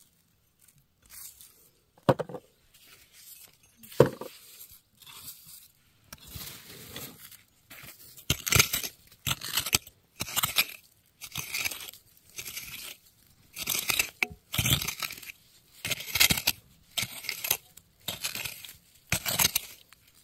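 Small pronged hand rake scraping and raking through gravelly red clay in repeated strokes, about one a second, with stones clinking. The scraping follows two sharp knocks of the tool striking the ground.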